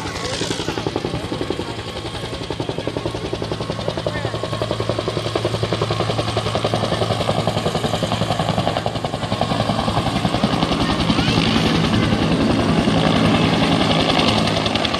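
Military helicopter landing close by, its rotor chopping rapidly over a steady turbine drone, growing louder about ten seconds in.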